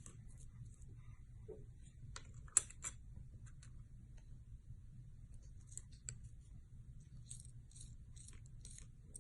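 Watermelon Splash slime being squished and poked by hand, giving runs of small crackling, clicking pops a few times a second, with a cluster of sharper clicks about two and a half seconds in.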